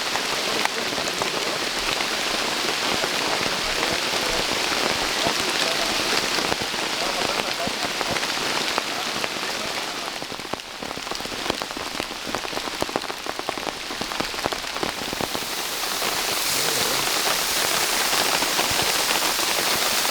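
Steady rain falling, a dense patter of small drop ticks. It eases slightly about halfway through and picks up again towards the end.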